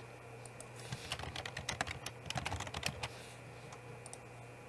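Typing on a computer keyboard: a quick run of keystrokes starting about a second in and lasting a little over two seconds.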